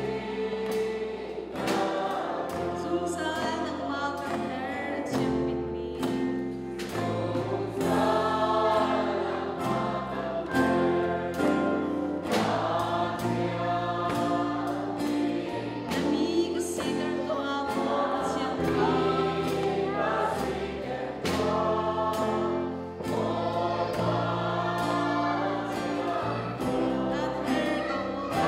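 Worship song played live by a small band with many voices singing together: a Pearl drum kit keeping a steady beat, electric guitar, and low notes changing every couple of seconds.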